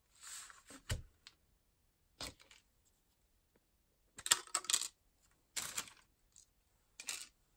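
Hard plastic clicks and taps as clear acrylic stamps on an acrylic block are handled and set down. A StazOn ink pad is dabbed onto the stamps in a quick run of taps a little after four seconds in.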